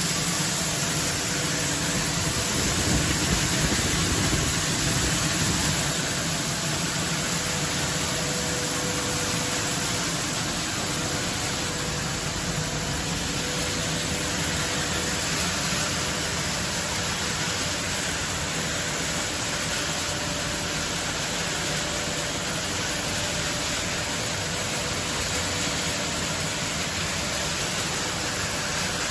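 PET bottle washing line running: a steady mechanical noise from its motors and machinery, with a faint steady hum.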